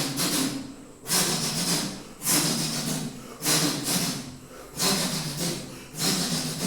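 A man making a vocal sound effect with his mouth: a run of sudden, breathy hissing bursts, about one a second, each fading out over a low wavering hum from his voice.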